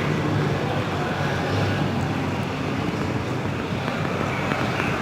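Steady outdoor city background noise, a dense even rush with a low hum, with wind on the microphone.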